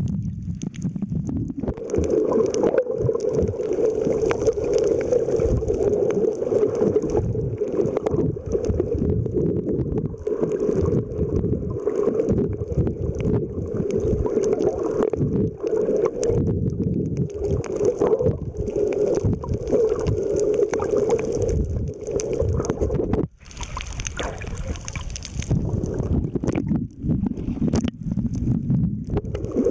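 Muffled underwater noise from a camera submerged while snorkelling: a continuous, loud rumbling wash of moving water, which drops out briefly about three-quarters of the way through.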